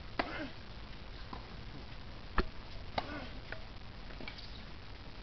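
Tennis ball struck by rackets and bouncing on a hard court during a rally: a few sharp pops, the loudest about two and a half seconds in.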